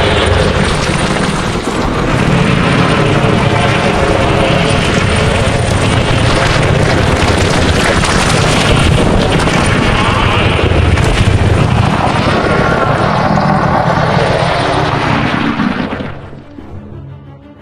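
Dragon sound effect: a loud, rough, rumbling creature noise with some growling tones in it, dropping away about sixteen seconds in.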